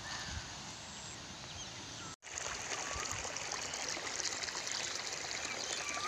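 Irrigation water gushing from the open end of a pipe and splashing onto a field, flowing steadily. After a brief cutout about two seconds in, it is louder and closer.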